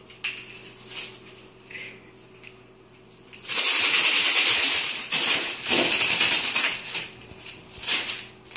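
Plastic film crackling and rustling loudly under a cat's paws as it scrambles and jumps on a desk. It starts suddenly about three and a half seconds in and goes on in dense, uneven bursts; before that there are only a few light taps.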